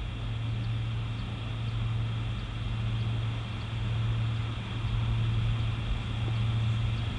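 Steady low hum under faint, even outdoor background noise at a golf tee.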